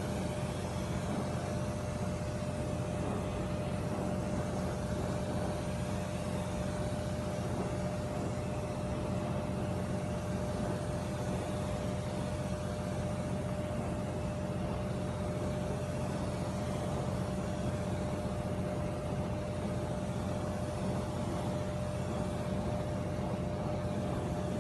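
A steady mechanical hum with one constant whining tone over it, unchanging throughout.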